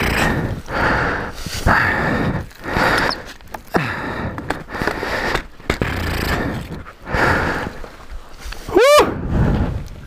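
A rider breathing hard in and out close to a helmet-mounted microphone, out of breath from exertion, in irregular gasps about once a second. A short rising squeak is heard near the end.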